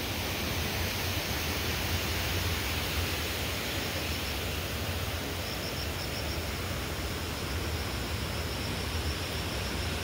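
Steady outdoor rushing noise with a low rumble, the kind made by wind on the microphone or by moving water, and a faint high pulsing from about four seconds in.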